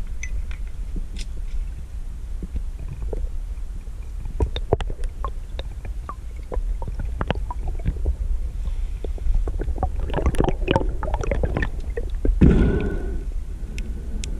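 Underwater sound picked up by a camera in its housing: a steady low rumble with scattered clicks and crackles that thicken about two-thirds of the way through. About 12.5 s in comes a louder gurgling burst, like bubbles rushing past.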